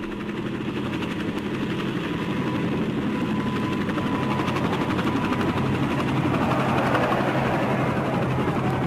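Recorded sound effect of a large engine with a steady drone that grows gradually louder, with a rushing noise building over the last few seconds. It is played back from a vinyl stereo LP.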